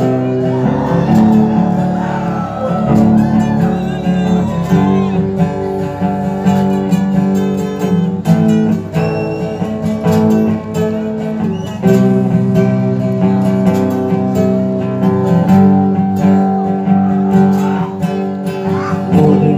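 Music led by guitars, with held chords and a steady low line throughout.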